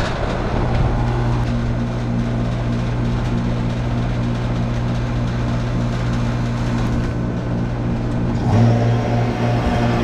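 Refrigeration vacuum pump running with a steady hum while it evacuates a newly installed air conditioner's refrigerant lines; it gets louder near the end.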